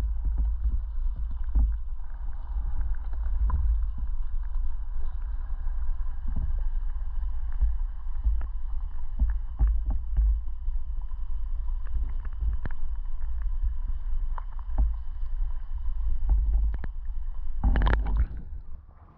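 Muffled underwater sound picked up by an action camera submerged in a shallow, pebbly stream: a steady low rumble of moving water with scattered faint clicks. Near the end comes a brief splashing surge as the camera breaks the surface.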